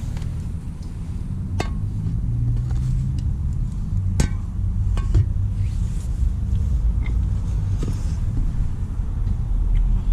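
Steady low rumble with a few sharp metallic clinks of hand tools against the car's suspension parts, about three of them spread through the first half.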